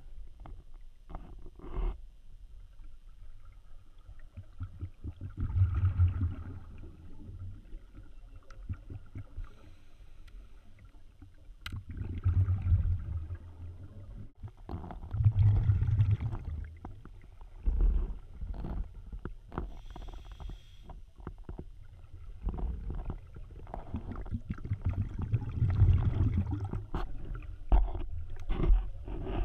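Muffled low rumbling and swirling water noise picked up by an underwater camera, swelling up every few seconds, with scattered small clicks.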